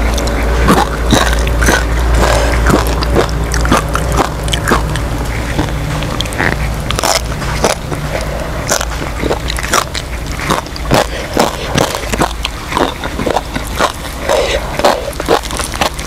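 Chewing and crunching of quail eaten bones and all: many sharp, irregular crunches, with a steady low rumble underneath.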